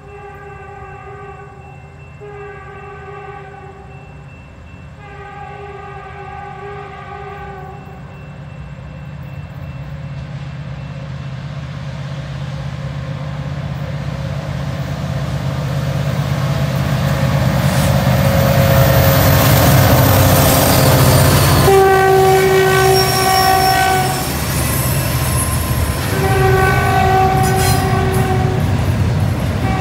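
CN freight train on a curve. The locomotive horn sounds three chord blasts from a distance, then a low diesel rumble swells steadily as the train approaches, and the horn blows two louder, closer blasts near the end. Thin, high wheel squeal comes in during the second half as the cars pass.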